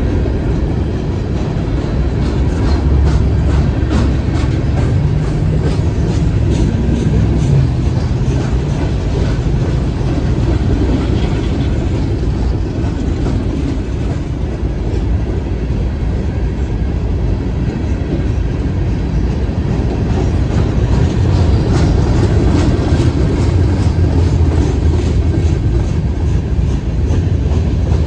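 A train rolling past at close range: a steady low rumble, with the wheels clicking over rail joints all through.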